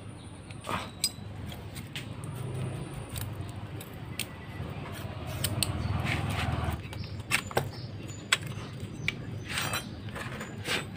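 Scattered sharp metallic clinks of hand tools, a wrench and a feeler gauge, being handled and set down on the cylinder head of a Honda Vario 110 engine during valve clearance adjustment, over a steady low hum.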